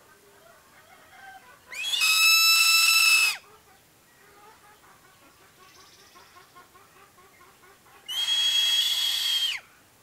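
Crested serpent eagle screaming twice. Each call is a loud, steady, high whistle held for about a second and a half, ending with a drop in pitch.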